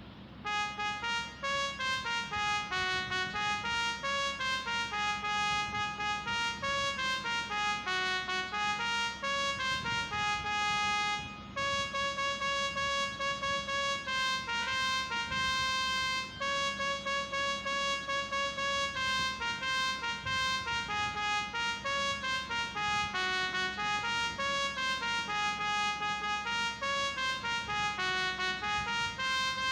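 A phone-ringtone tune played as a quick run of rising and falling notes in a trumpet-like tone, with a short break partway through. A steady low hum sits underneath.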